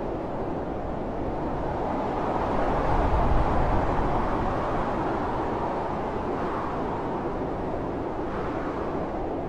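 Loud blizzard wind blowing steadily, heard from inside a cabin, swelling into a stronger, deeper gust about three seconds in before settling back.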